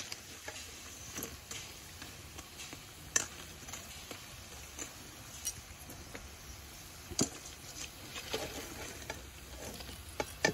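Banana-flower fritters sizzling as they deep-fry in hot oil in a kadai, stirred and lifted with a metal skimmer, with scattered sharp clicks and taps throughout.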